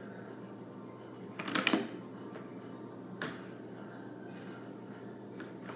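Objects being handled and knocked: a short cluster of clatter about a second and a half in, then single knocks a little after three seconds and near the end, over a steady low room hum.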